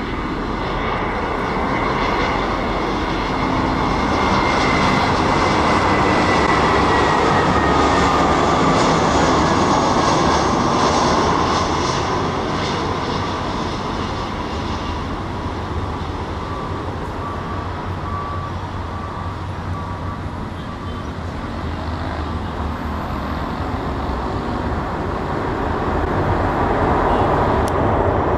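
Airbus A320 airliner's jet engines on final approach, a whine that glides down in pitch as the jet passes, over a dense rush of engine noise. The noise eases mid-way and grows louder again near the end as the aircraft rolls out on the wet runway.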